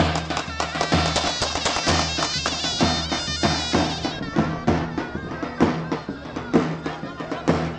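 Turkish folk dance music with a loud, reedy melody line full of quick ornaments over steady, heavy drum beats, typical of a davul and zurna playing for wedding dancing.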